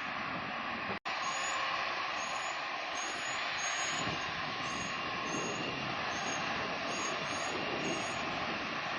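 Jet airliner engines making a steady rush of noise, cutting out for an instant about a second in.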